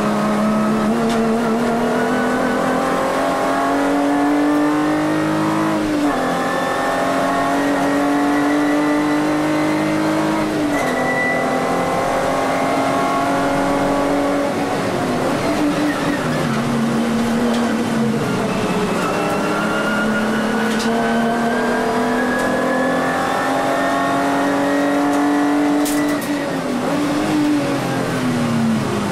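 Volkswagen Vento VR6's six-cylinder engine at racing revs, heard inside the stripped-out cabin. Its pitch climbs hard and then drops back several times as it shifts gears and lifts off for corners.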